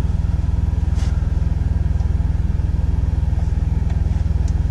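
Semi-truck's diesel engine idling, a steady low throb heard inside the sleeper cab, with a couple of light clicks about a second in and near the end.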